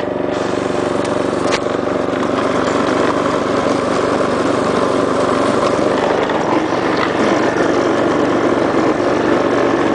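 Small single-cylinder lawn mower engine running steadily at a fixed throttle, its governor removed and the throttle locked slightly above governed speed, while the homemade ride-on mower drives along with its blade taken out.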